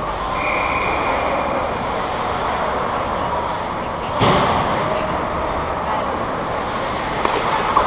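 Live ice hockey game heard from rinkside behind the goal: steady rink noise of skates and play, with voices calling out. A sharp loud knock comes about four seconds in.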